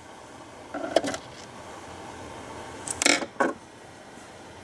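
Handling of a plastic radio case during disassembly: a few short clicks and knocks, one about a second in and a small cluster about three seconds in.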